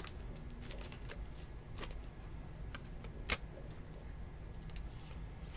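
A trading card and a rigid plastic top loader being handled: scattered light plastic clicks and taps, the sharpest about three seconds in, over a low steady hum.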